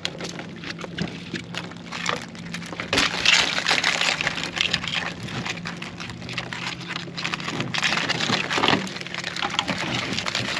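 Wire-mesh crab trap being handled and pried open: a dense run of crackling, rattling clicks, heaviest from about three seconds in.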